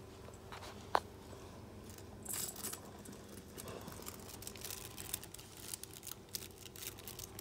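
Faint, irregular rattling and jingling of puppies' toys, with one sharp click about a second in.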